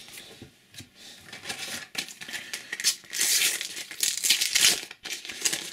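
A Panini sticker packet's wrapper crinkling and tearing as it is ripped open, with the loudest crackling burst in the second half.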